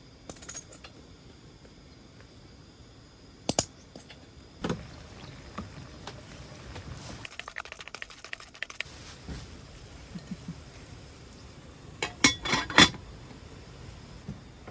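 Camp cookware and utensils being handled: scattered clicks and light clinks of hard metal or glass items, ending in a quick cluster of sharp clinks about twelve seconds in.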